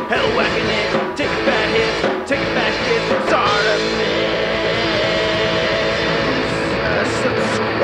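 Rock music with a singing voice, the channel's intro theme song.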